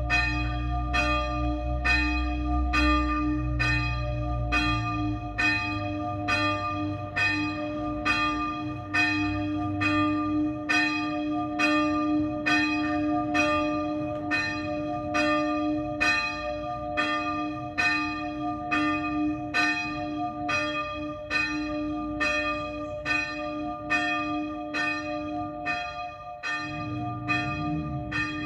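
A single small church bell, the sonello, swung a slancio in a distesa: its clapper strikes it at a steady pace of about one stroke a second, each stroke ringing on into the next.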